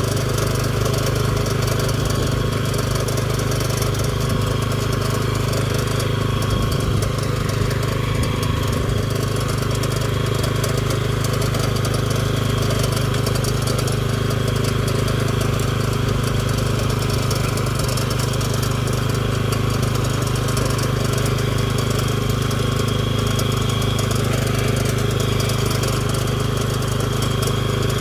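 Engine of an Asia walk-behind cultivator (power tiller) running steadily at an even speed.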